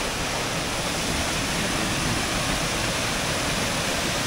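Rushing water of the Roztoka stream pouring down the Mickiewicz Waterfalls cascades: a loud, steady rush.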